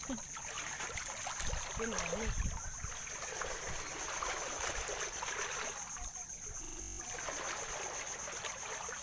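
Shallow seawater lapping and rippling at the shore, with wind gusting on the microphone now and then and a steady high hiss underneath.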